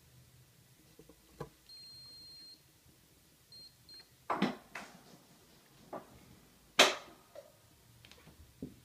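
An electronic beep: one steady high tone lasting about a second, then two short beeps. Several sharp knocks and clicks follow, the loudest about seven seconds in.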